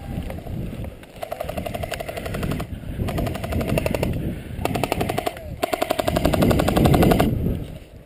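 Airsoft rifle firing on full auto in four rapid bursts of one to two seconds each.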